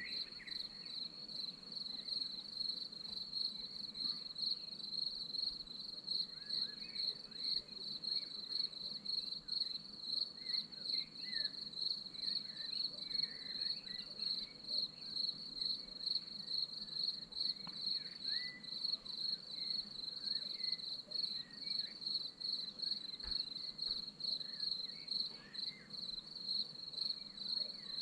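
Crickets chirping in a steady, even rhythm of a high trill, pulsing about twice a second, with faint short chirps scattered underneath.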